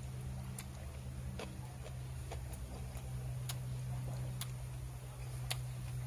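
Chewing with a faint sharp mouth click about once a second, over a steady low hum.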